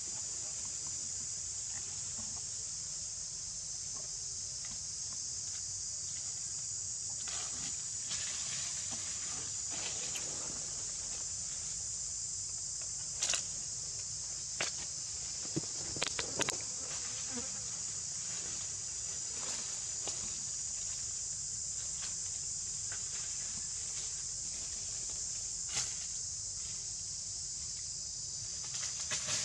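Steady high-pitched drone of insects in the forest, with a few short sharp crackles scattered through it, most of them around the middle.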